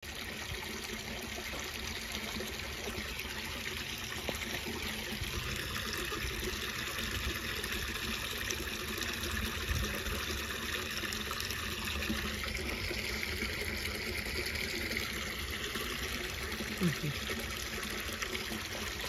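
Shallow creek water trickling and splashing steadily, with dogs wading through it.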